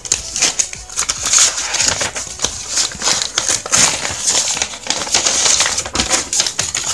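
Folded paper invoice sheets being pulled out and unfolded by hand, with irregular rustling and crinkling that carries many quick crackles.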